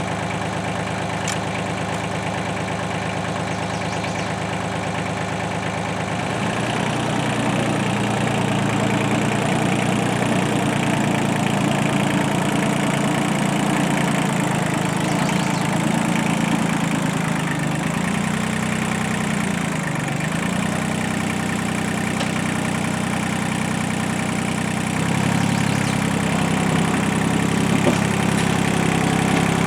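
Heavy machinery engine running steadily under working load. Its speed and loudness pick up about six seconds in, then sag and recover briefly a few times.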